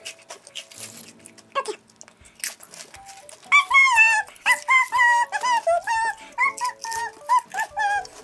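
Crisp potato chips crunching between the teeth. From about three and a half seconds, a high whistled tune of short, stepping notes with a piccolo-like tone follows, louder than the chewing.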